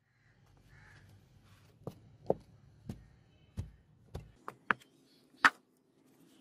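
Blacksmith tongs and a wooden sand-casting flask knocking against a concrete floor as the flask is tipped and the sand shaken out of the mold: a string of about eight sharp, irregularly spaced knocks, the loudest near the end.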